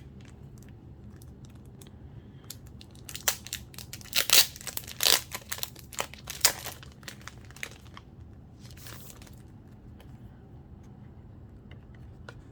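Paper and plastic packaging crinkling and rustling as it is handled, in a run of sharp crackles from about three to seven seconds in and a softer rustle a little later.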